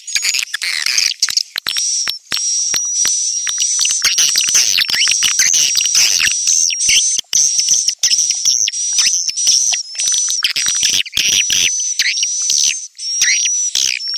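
Edible-nest swiftlet lure call: a dense, rapid chittering and twittering of swiftlet calls, high-pitched and almost without low sound, with a thin high whistle held through most of it.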